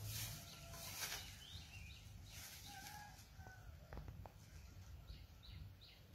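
Faint chirps of small birds, short descending notes in scattered runs. In the first second or so a couple of louder rustles, like the microphone brushing against fur or straw.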